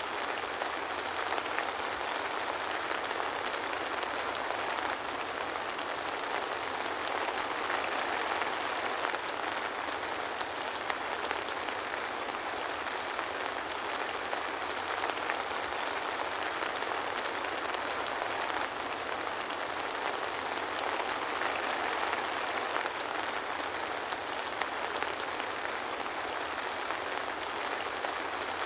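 Soft rain falling steadily: an even hiss with little low rumble and scattered faint drop ticks, with no thunder.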